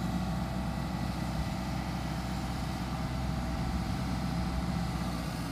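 A steady, low engine hum running evenly, with no change in pitch.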